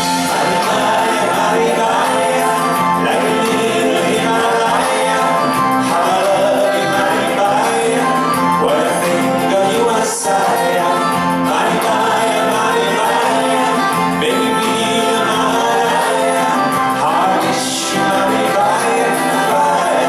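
Live pop band playing a song, with singing over the band.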